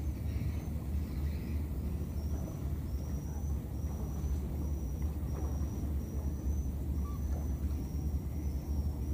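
Outdoor ambience: a steady low rumble, with a thin high trill that starts about two seconds in and repeats in short pieces, a little faster than once a second.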